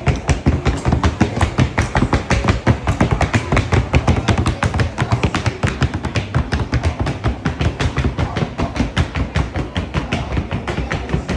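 Paso Fino horse's hooves striking a hard surface in its rapid, even four-beat gait: a fast, steady patter of sharp taps, many a second.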